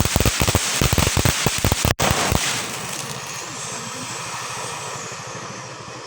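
Golden Rooster firework fountain spraying with dense, rapid crackling pops. The crackling stops about two and a half seconds in, leaving a steady hiss that fades as the fountain burns out.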